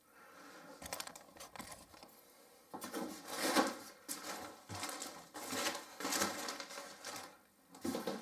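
Packaging being handled and pulled about in an unboxing: a few small clicks, then several rustling, scraping bursts of packing material from about three seconds in.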